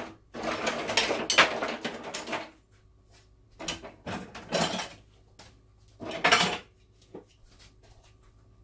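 Kitchenware clattering: pans, dishes and utensils being handled in three bursts, opening with a sharp knock and ending with a small click.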